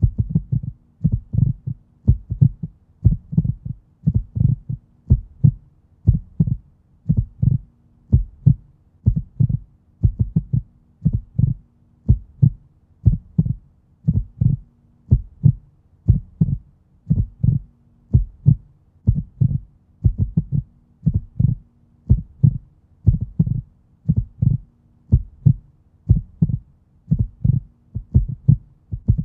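Human heartbeat: a steady lub-dub of paired low thumps, about one beat a second, over a faint steady hum.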